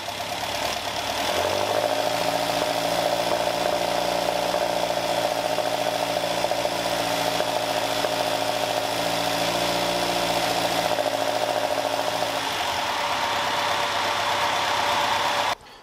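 Caterham Super Seven's carburetted engine running at a steady speed, its note stepping up about a second and a half in and easing near the end before cutting off abruptly. It runs evenly, with no popping back through the carburettors: the backfire is cured by the new jetting.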